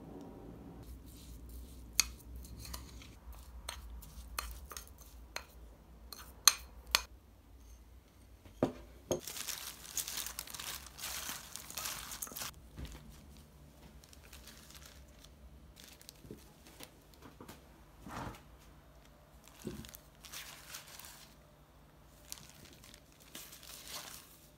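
Kitchen handling sounds of kimchi making. First a metal spoon clinks sharply several times against a bowl. Then comes a long crinkle of a plastic glove tossing seasoned radish cubes in a stainless steel bowl, and near the end a few knocks and rustles as the kimchi is put into glass containers.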